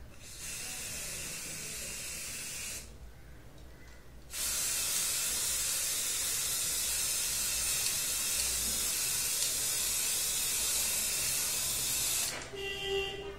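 Aerosol spray paint can spraying onto a board: a hiss of about two seconds, a short pause, then a long, louder, continuous hiss of about eight seconds.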